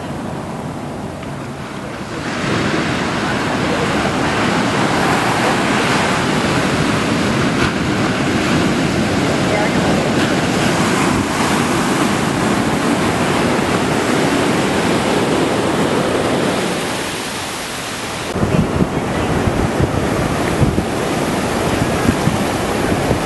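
Ocean surf breaking on a sandy beach: a steady rush of breaking waves and foaming wash that grows louder about two seconds in. In the last few seconds, wind buffets the microphone in irregular low thumps.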